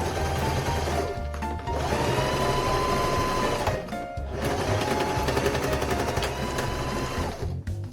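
Electric home sewing machine stitching in two runs, its motor whine rising as it gets up to speed and stopping briefly about four seconds in and again near the end. Background music plays along.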